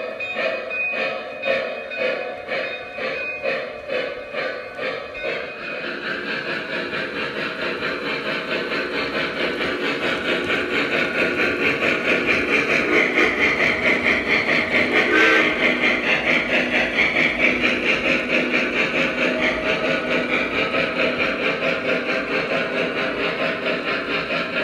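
Lionel O-gauge model steam train running, its onboard sound system chuffing: slow chuffs a little over one a second, quickening to a fast steady beat about six seconds in and growing louder toward the middle.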